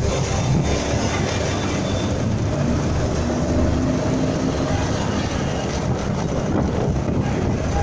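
Motorcycle riding in town traffic, heard from a phone mounted on the bike: a steady mix of engine and road noise, with the low rumble of a tanker truck driving close alongside.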